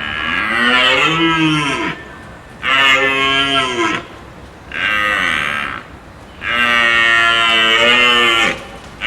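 A cow mooing: four long, drawn-out calls about one to two seconds each with short pauses between them, the pitch bending during each call, and another call beginning at the end.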